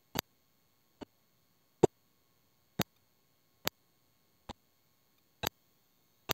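Evenly spaced sharp clicks, a little under one a second, as the electric skateboard's wheels roll over the joints between paving slabs.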